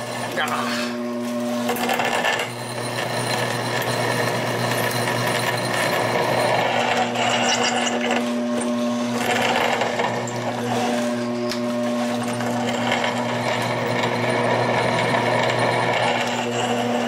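Homemade milling machine's spindle motor running steadily while a 5 mm twist drill bores pilot holes into a steel block, with a continuous grinding noise from the cut that swells and eases. The drilling sounds crunchy: chips are not clearing and are grinding between the drill and the hole wall.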